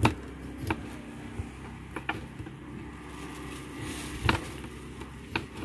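Large knife cutting a seer fish (king fish) into steaks, the blade knocking sharply on the cutting table about six times. The loudest knocks come right at the start and about four seconds in, over a steady background noise.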